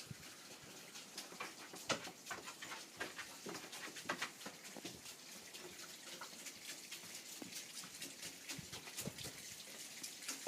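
Snowmelt dripping and trickling down a rain chain: a faint, irregular patter of drips and small splashes.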